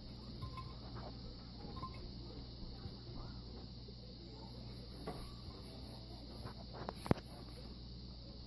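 Cookies being moved from a wire cooling rack into a glass cookie jar: faint small knocks, with one sharp click about seven seconds in, over a faint flickering high hiss.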